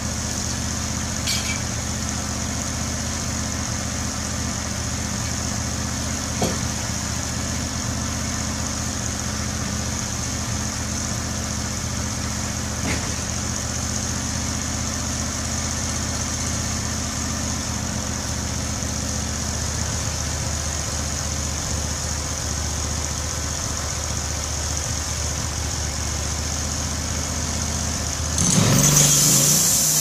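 Norwood LumberMate LM29 portable bandsaw mill's engine idling steadily, with a couple of faint knocks. About a second and a half before the end it is throttled up and turns much louder as the band blade starts into the cut.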